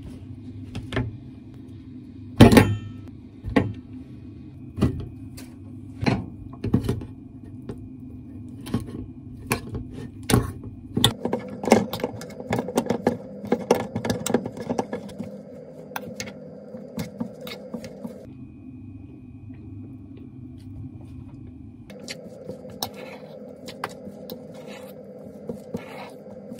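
Sharp knocks about once a second as a boiled sweet potato is cut into pieces on a cutting board. About ten seconds in, a fork starts clinking and scraping quickly against a stainless steel bowl as sweet potato and boiled eggs are mashed, then slows to scattered clinks. A steady low hum runs underneath.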